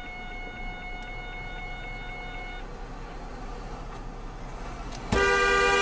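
Low steady hum of a car idling in traffic, with a faint steady tone during the first half. A loud, steady car horn blast starts about five seconds in and is still sounding at the end.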